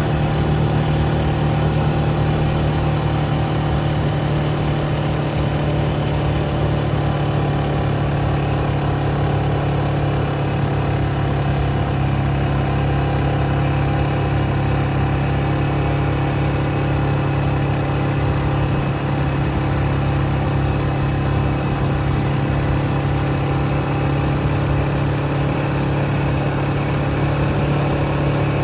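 Vehicle engine running steadily at an even speed, with a constant low hum and a noisy wash over it.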